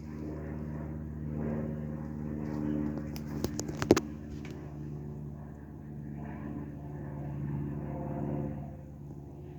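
Kawamoto N3-206SHN well pump's electric motor running with a steady hum, the abnormal noise that the motor makes whenever it runs. A quick run of sharp clicks sounds about three to four seconds in.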